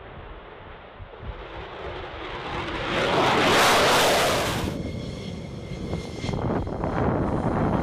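F-15E Strike Eagle twin jet engines at takeoff power as the jet climbs away past the microphone, the noise swelling to its loudest about three to four seconds in. Near five seconds it cuts abruptly to another Strike Eagle's jet engines on its takeoff roll, growing louder again toward the end.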